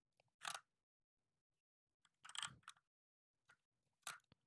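A few faint, short clicks of a computer keyboard and mouse, about four spread over a few seconds, against near silence.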